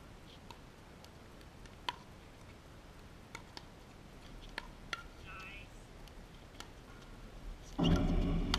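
Scattered sharp pocks of pickleball paddles striking the hollow plastic ball. About 8 seconds in, a louder stretch with a voice begins.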